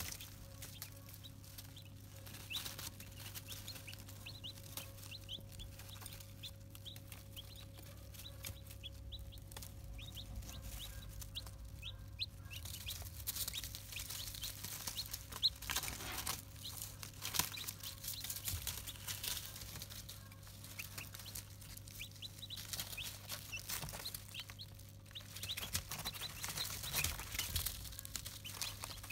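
Brahma chicks peeping softly, with many short, high, rising cheeps scattered throughout and light clicks as they peck at a feed dish. A steady low hum runs underneath.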